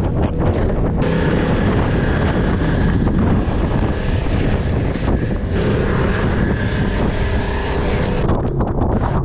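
Outboard-powered work boat under way: the motor runs steadily under heavy wind buffeting on the microphone.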